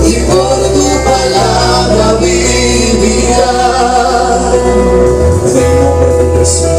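Christian worship music: a sustained instrumental passage with held chords and a steady bass line, with singing voices, between sung lines of a Spanish-language worship song; the bass moves to a new note about five seconds in.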